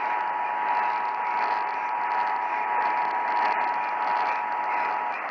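Emergency Alert System two-tone attention signal (853 and 960 Hz together) broadcast by a radio station during a required weekly test, heard through heavy static hiss on distant radio reception. The steady dual tone stops about five seconds in, leaving the hiss.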